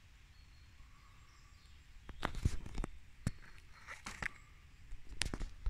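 Handling noise from a small cardboard box of friction-head firecrackers being picked up and turned over in the hand. It comes as a few short scrapes and taps, starting about two seconds in and recurring until the end.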